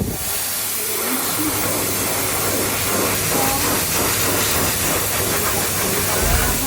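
Electric hand dryer blowing: a loud, steady rush of air that dies down near the end.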